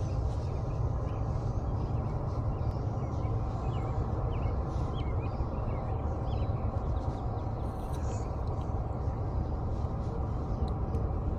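Birds chirping, short quick calls scattered throughout, over a steady low rumble.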